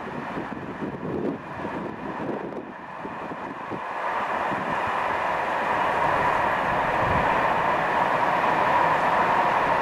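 A passing train's rolling noise, growing louder about four seconds in and then holding steady, with a hum in the middle pitches. Wind gusts on the microphone in the first few seconds.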